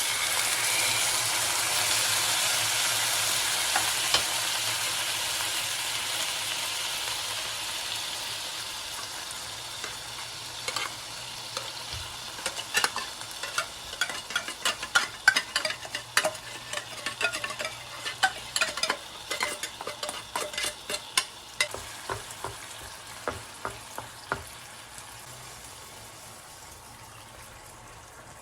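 Food going into a hot oiled pan and frying: a loud sizzle starts suddenly and slowly dies down. From about ten seconds in, a utensil clicks and scrapes against the pan many times as the food is stirred.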